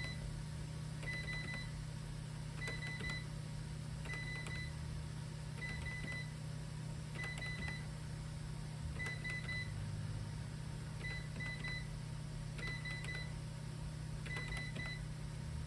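SAM4s ER-915 cash register keypad beeping as character codes are keyed in for a receipt header line. About ten quick clusters of short high beeps, roughly one every second and a half, over a steady low hum.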